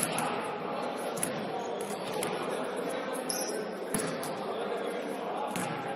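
A basketball bouncing on a gym floor, a few separate thumps, over indistinct voices in the background.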